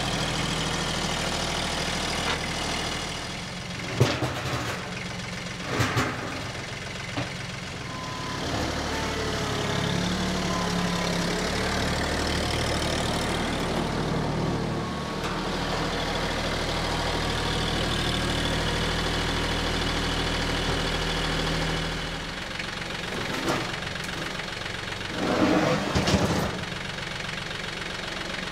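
An engine running at idle, its speed shifting up and back down a couple of times, with a few sharp knocks and a louder burst of clunks near the end.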